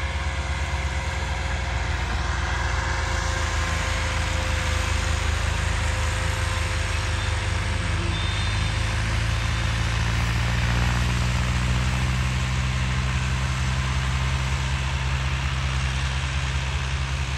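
Diesel tractor engine running steadily under load while tractors pull cultivators across the field, a continuous low drone with an even pulse.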